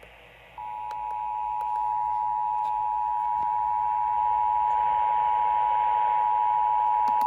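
Emergency Alert System two-tone attention signal on FM radio: a steady, unwavering dual tone comes in about half a second in and holds over a light radio hiss. It is the alarm that announces an emergency alert, here an AMBER Alert for a child abduction.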